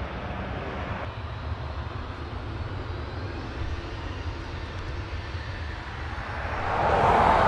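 Boeing 737-700 CFM56-7B turbofan engines running as the jet begins its takeoff roll, a steady low rumble and rush that swells sharply louder about seven seconds in as the engines come up to takeoff power.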